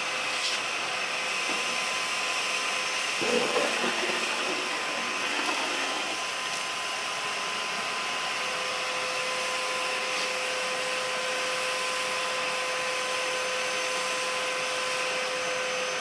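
2B 18-litre wet and dry shop vacuum running in dry mode, its motor giving a steady whine along with the rush of air, as the nozzle on its wand sucks up sawdust.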